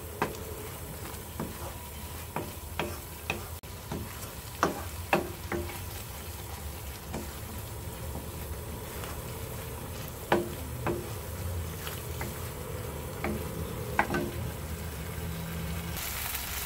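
Wooden spoon stirring and scraping a thick curry paste around a hot pan, with irregular knocks of the spoon against the pan over a steady sizzle as the paste cooks down. The sizzle grows brighter near the end.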